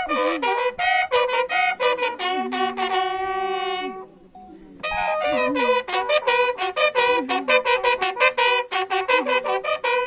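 Military bugle playing a salute call: quick runs of clear brass notes in two phrases, with a short pause about four seconds in.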